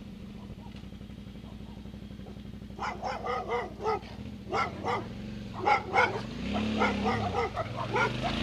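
Small dog barking rapidly at a motorcycle, a quick run of sharp barks starting about three seconds in, over the bike's steady low engine hum. Near the end the engine note rises and falls as the throttle opens.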